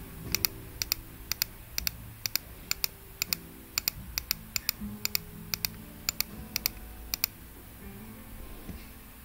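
Single keys tapped on a laptop keyboard, about two a second, each a sharp click, stopping about seven seconds in.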